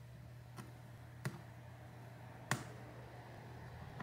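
Three small sharp clicks: a small metal tool tapping and catching against the iPad Air 2's board and frame as it is pried under the main board. The last two clicks are the loudest. A faint steady low hum runs underneath.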